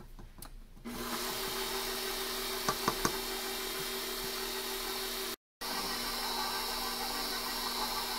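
Stand mixer motor starting about a second in and running steadily, its dough hook kneading a stiff flour, egg and butter dough in a steel bowl. A few sharp clicks near three seconds, and the sound breaks off for an instant just past five seconds.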